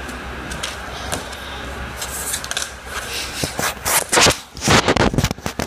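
Plastic toy blind-bag packets and cards crinkling and rustling as they are handled. Faint at first, then loud, irregular crackles from about two seconds in.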